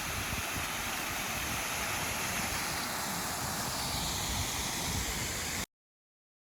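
Wind buffeting the microphone, a steady rushing hiss with uneven low rumbles, cutting off abruptly near the end.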